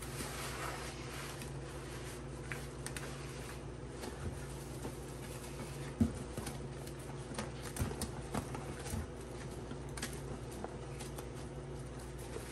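Wet squelching of soapy sponges being squeezed, then irregular soft slaps and pats of gloved hands and sponges on a thick wet grout paste, over a faint steady low hum.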